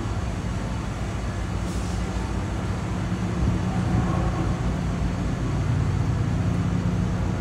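A vehicle engine running steadily nearby, a low hum that grows a little louder about halfway through.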